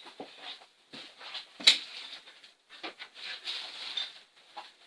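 Handling noise from hand tools being picked up and moved: scattered rustles and light clicks, with one sharp click about a third of the way in.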